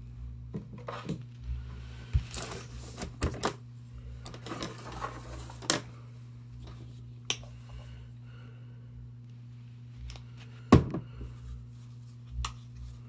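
Paintbrushes and painting supplies being handled, tapped and set down on a tabletop: scattered light clicks and knocks with a few brief scraping rustles, the sharpest knock near the end. A steady low hum runs underneath.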